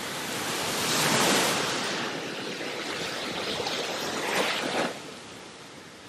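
Ocean surf: waves breaking and washing up a sandy beach. It swells about a second in and again around four and a half seconds, then falls off near the end.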